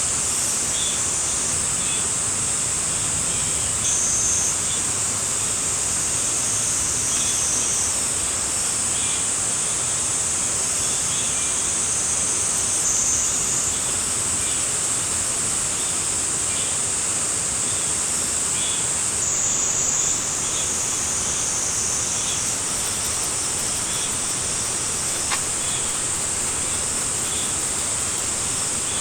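Cicada chorus: a dense high buzz whose pitch shifts every few seconds, over a steady, even hiss.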